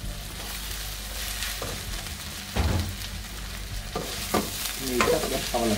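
Chopped kottu roti with vegetables, chicken and cheese sizzling in a pan while a spatula stirs and tosses it, with a steady frying hiss and several scrapes and knocks of the spatula against the pan, most of them in the second half.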